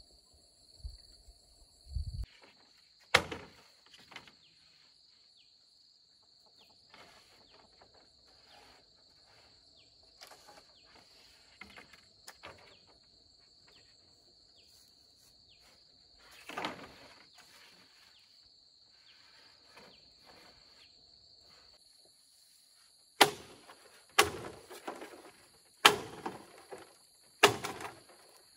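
Bamboo poles being handled on a trellis frame, with faint rustling and clacks. Near the end come several sharp, loud knocks on bamboo, roughly one every second or so. A steady high chirring of insects runs underneath.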